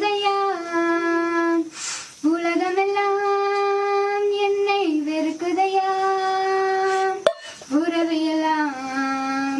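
A young girl singing solo and unaccompanied, holding long, steady notes of a slow melody, with a breath about two seconds in and another near the end.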